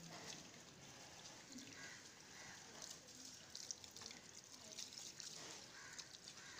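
Near silence: low background noise with faint distant voices and a few soft clicks.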